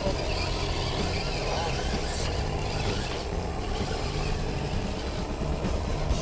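Electric RC rock crawler's motor and geared drivetrain whining in short starts and stops as it is throttled up over rocks.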